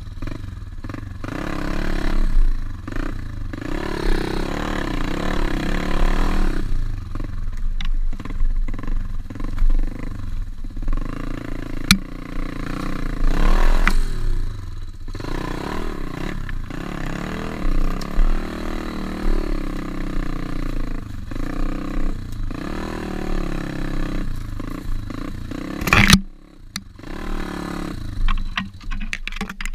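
Small single-cylinder pit bike engine revving up and down over and over, its pitch rising and falling as it is ridden hard. A few sharp knocks cut through, the loudest near the end.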